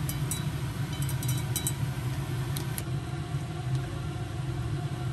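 Steady low machine hum with a few light clicks over it.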